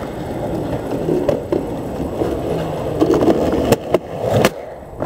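Skateboard wheels rolling over pavement, the rumble growing as the board comes close and passes, with a few sharp clacks near the end.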